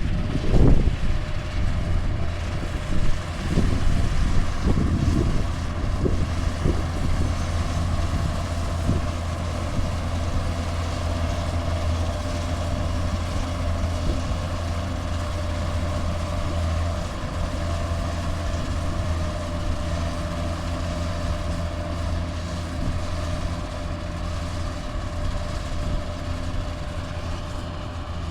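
Engine of a Kubota farm machine running steadily at a constant speed, with a low hum. Several knocks and clanks in the first few seconds.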